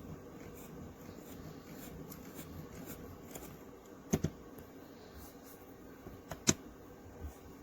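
A quiet room with a faint steady hum, broken by a few sharp clicks or knocks: a close pair a little past halfway, then a louder single knock shortly after, with a softer one near the end.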